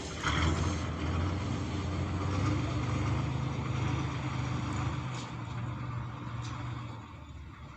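Diesel engine of a K-701 Kirovets tractor running steadily; its pitch rises a little about two seconds in, holds, then fades out near the end.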